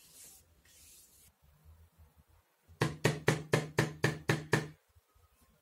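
A quick, even run of about nine light knocks on wood, about five a second, like fingertips tapping on an MDF board.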